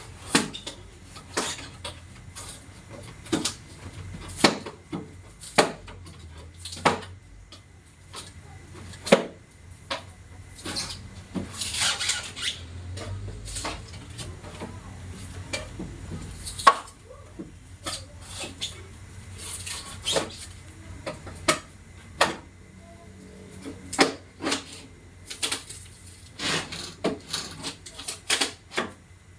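Irregular clinks and knocks of tools and metal and plastic parts being handled while a two-door refrigerator's body is taken apart, with a short scraping stretch about twelve seconds in.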